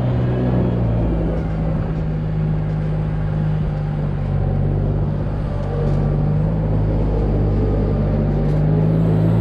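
Wheel loader's diesel engine running steadily at working speed, a constant low hum with noise from the machine working over it.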